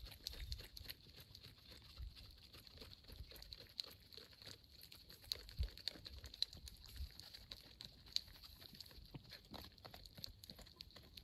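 A cat eating wet food from a paper plate, close up: irregular wet chewing and lapping clicks, a few of them louder.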